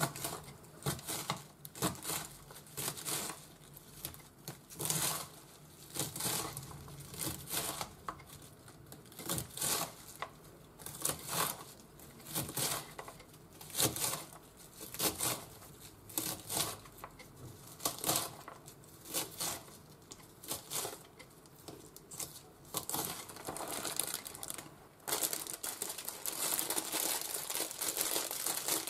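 Kitchen knife shredding cabbage on a cutting board, a steady run of crisp cuts about one or two a second. In the last few seconds, plastic packaging crinkles as a pack of shimeji mushrooms is opened.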